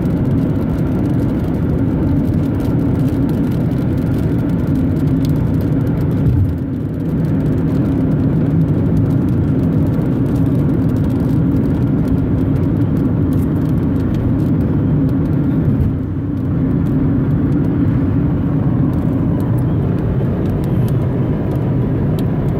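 Steady road and engine noise inside a moving car's cabin, a low hum and rumble heard through a cell phone's microphone, dipping briefly twice.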